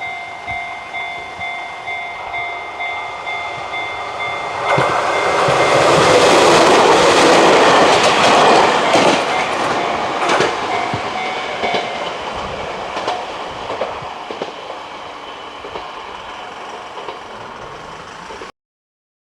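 Japanese level crossing alarm ringing in a steady repeating clang while a train passes over the crossing. The rumble and rattle of the wheels swells about five seconds in, is loudest in the middle and then fades. Everything cuts off abruptly near the end.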